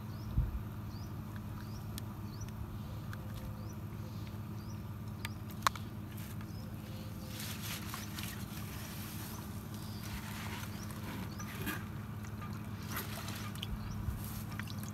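A tin bucket is dipped into pond water, with brief splashing and sloshing in the middle and again near the end, over a steady low hum. A sharp click sounds a few seconds before.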